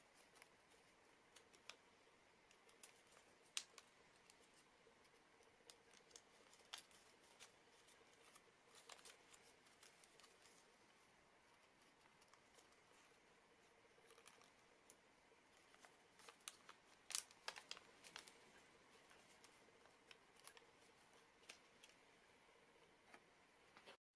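Faint, irregular crinkles and sharp little snaps of origami paper being pinched and creased by hand, with the loudest cluster of snaps about two-thirds of the way through.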